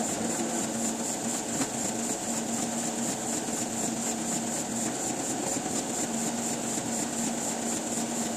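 Printing press machinery running steadily, a constant mechanical hum with a high whine over it.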